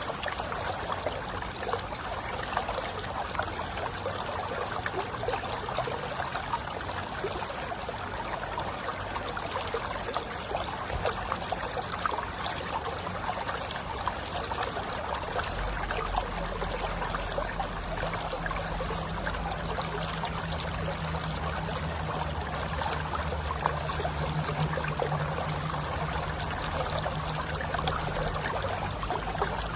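Mountain river flowing over rocks: a steady rushing and gurgling of water. A low steady hum joins about halfway through.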